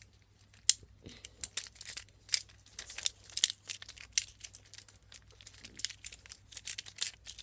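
Plastic being handled, crinkling and clicking in quick, irregular crackles.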